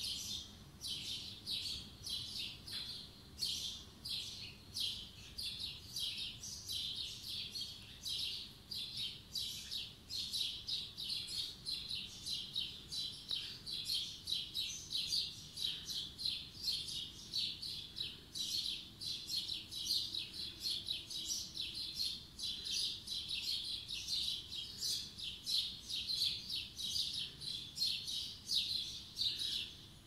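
A chorus of many small songbirds chirping and singing on a spring morning. The high chirps overlap thickly and run on without a break, several a second.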